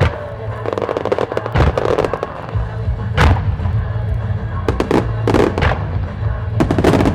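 Starmine fireworks shells bursting in rapid clusters with crackling reports, the strongest burst about three seconds in, over the show's accompanying pop song with a steady bass beat that becomes fuller partway through.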